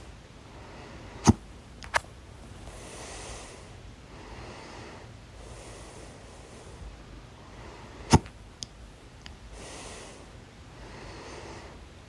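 A person hiccupping loudly: two sharp hiccups about seven seconds apart, about a second in and again about eight seconds in, each followed by a smaller click about half a second later. Soft breathing is heard between them.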